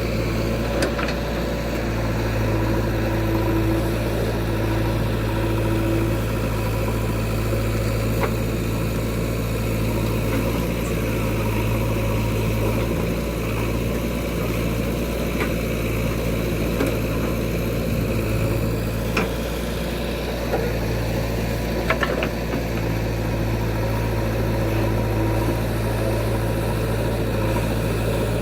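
Diesel engine of a JCB backhoe loader running steadily, its note strengthening and easing a few times, with a few short sharp knocks about 8, 19 and 22 seconds in.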